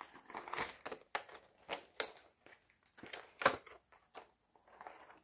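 Spiral-bound paper floss-organizer cards and their bundles of embroidery floss being handled and flipped: a series of short, irregular rustles and crinkles, the sharpest about two seconds in and again about three and a half seconds in.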